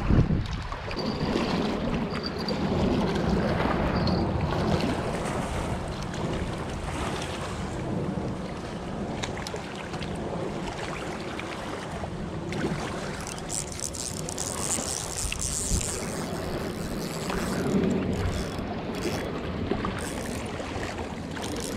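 Wind buffeting the microphone over choppy lake water washing against a rocky shoreline, a steady noisy rush with low rumbling gusts.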